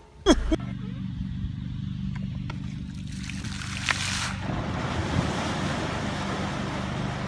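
A motor running with a steady low hum, joined by a rushing of wind and water that grows from about three seconds in. A brief sharp sound with a quick falling sweep comes just before the hum starts, near the beginning.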